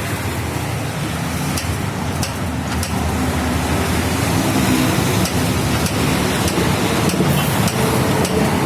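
Yamaha RX-King's two-stroke single-cylinder engine running through its modified silencer as it is tested, with a few sharp ticks. Its speed and loudness rise a little about three seconds in.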